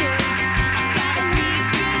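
Rock band playing live, with a steady drum beat of about two and a half hits a second under sustained Korg synthesizer chords.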